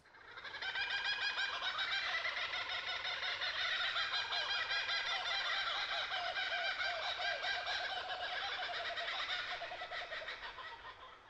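Many birds calling and chattering together in a dense, continuous chorus. It fades in over about the first second and fades out near the end.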